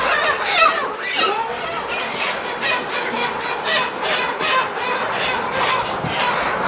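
A flock of young chickens squawking and calling, with rapid high calls at about four or five a second through the middle.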